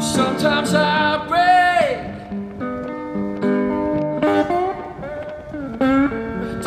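Background music led by guitar, with some notes bent or slid in pitch.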